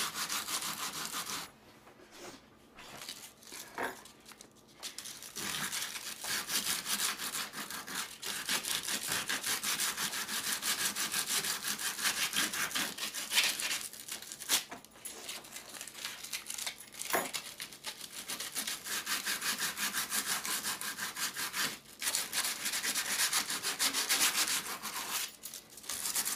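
Sanding sponge rubbed rapidly back and forth over a cured urethane-foam patch on the plastic corner of a cooler lid, smoothing the repair. The strokes stop for a few seconds near the start, then run on steadily.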